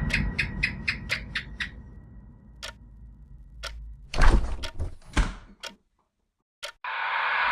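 A run of sharp ticking clicks, about four a second, that thins out to a few single clicks, followed by a heavier thud. After a moment of silence, a steady hiss cuts in suddenly near the end.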